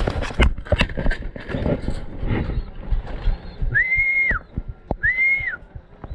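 Knocks, clicks and rustling from handling a racing pigeon and its leg band, then two short high whistle notes a little over a second apart, each sliding up at the start, held, and dropping off at the end.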